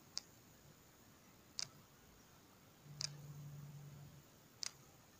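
Faint clicks from the Bluboo S1 smartphone camera's autofocus mechanism as it hunts for focus: four sharp clicks about a second and a half apart. A faint low hum lasts about a second near the middle.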